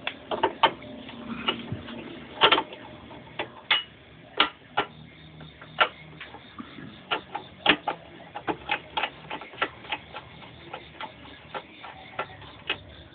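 Sharp metallic clicks and taps from a hand nut driver working the 5/16 shroud bolts on a Briggs and Stratton mower engine. The clicks are irregular, a few a second, and come more often in the second half.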